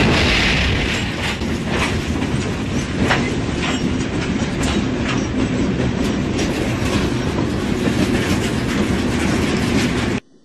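Train-to-train collision: a passenger train slams into a standing locomotive and loaded hopper cars with a sudden loud crash. It is followed by heavy rumbling and grinding, with repeated sharp metallic bangs as the cars shove each other along the track, and the sound cuts off suddenly about ten seconds in.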